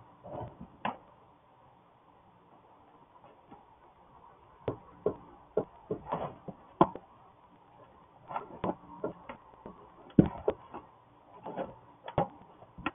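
Hen shuffling in the straw of a plastic nest box as she turns and settles in, making irregular knocks and rustles.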